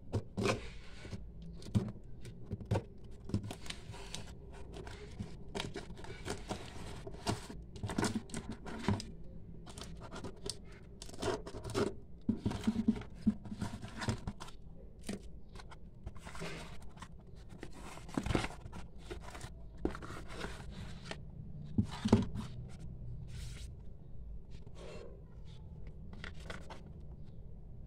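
Cardboard shipping box being opened by hand: a blade scraping and cutting along the packing tape, tape tearing, and cardboard flaps rustling and being folded back, in irregular short scrapes and clicks. Near the end a small cardboard product box is handled.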